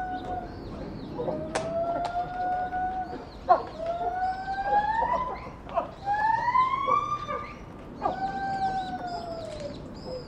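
A series of long, pitched wooing calls from an ape. Each call rises and then levels off over a second or two, with short gaps between calls, and fainter high chirps sound above them.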